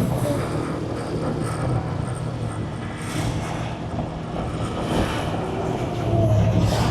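A vehicle running along the road: a steady engine and road noise.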